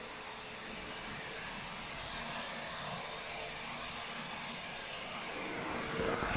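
Märklin Delta BR41 HO model steam locomotive running over the track and points: a steady whir from its motor and wheels, getting louder near the end.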